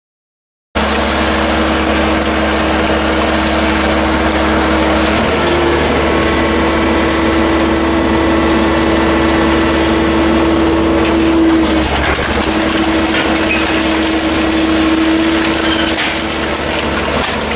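Scrap-car baler's hydraulic power unit running steadily, a constant drone with a steady pump whine, as the press pushes a compacted car body out of its chamber. The sound starts after a brief silent gap at the very start.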